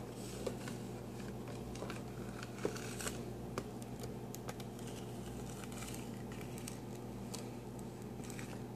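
Fingers handling and turning a glossy cardboard model-kit box, with scattered rustles, scrapes and light taps. The sharpest taps come in the first few seconds, over a steady low hum.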